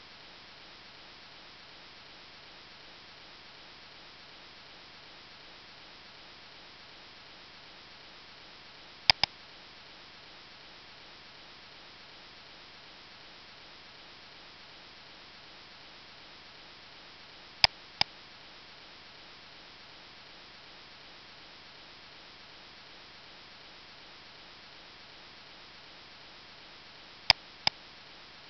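Three computer mouse double-clicks, about nine seconds apart, over a steady microphone hiss.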